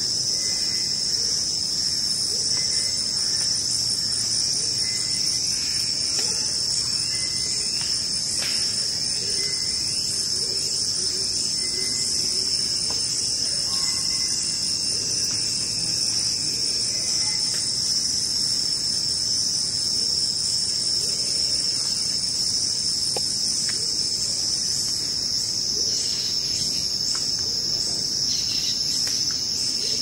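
Amazon rainforest insect chorus: a dense, steady, high-pitched shrill drone of many insects, with a few faint bird calls over it, including a drawn-out whistle midway and quick repeated calls near the end.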